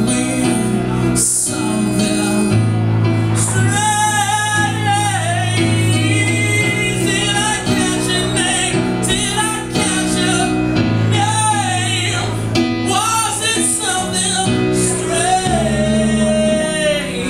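Music: a song with a sung vocal line, notes held with vibrato, over sustained instrumental chords.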